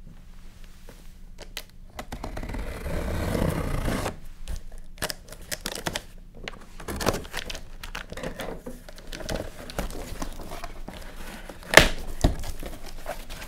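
Scissors slicing along the packing tape on a cardboard box, with tearing, crinkling and scraping of tape and cardboard, then the top flaps being pulled open, with one sharp crack near the end.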